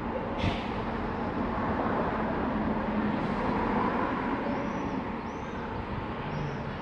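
Steady city street traffic noise, with a few faint short high chirps in the second half.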